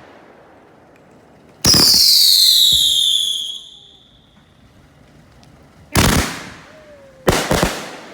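Consumer fireworks going off close by. About a second and a half in, a loud whistle falls in pitch over about two seconds. Then come two sharp bangs, about six and seven seconds in, the second trailed by a few quick crackling pops.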